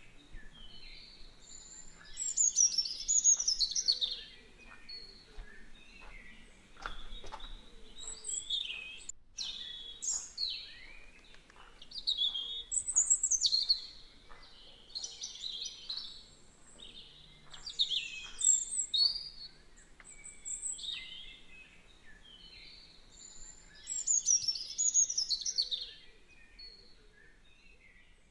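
Birds chirping and singing in repeated short bursts of high, quick notes a second or two apart, with a few louder bouts of song.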